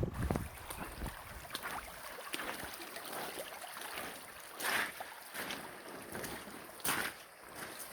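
Shallow stream water running, with wind buffeting the microphone briefly at the start. There are two short, louder rushing bursts, about five and seven seconds in.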